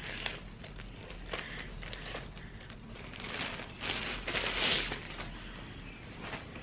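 Rustling as a slick-material bodysuit is handled, in a few short bouts of rustling, loudest about three and a half to five seconds in.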